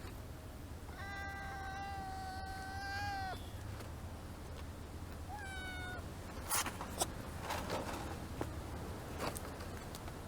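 Stray kitten meowing twice: one long, high, steady meow, then a short meow that falls in pitch. Two sharp short noises follow about two-thirds of the way through.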